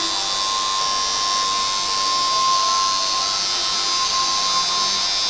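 Electric tattoo machine buzzing steadily while the needle works on the skin of an arm, a constant high-pitched electric drone with no change in speed.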